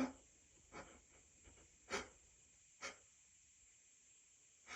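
A man's faint, short catching in-breaths, about five of them, as a sneeze builds up.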